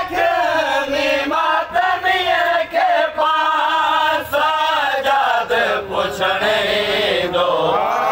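A group of men chanting a Sindhi noha for Husayn in unison, with chest-beating (matam) slaps keeping time under the singing.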